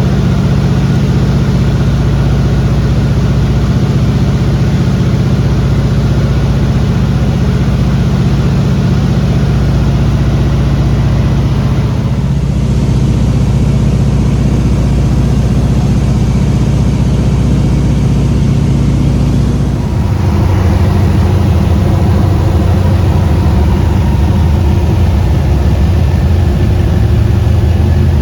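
Loud, steady engine drone with a deep hum, its tone shifting abruptly about twelve and twenty seconds in.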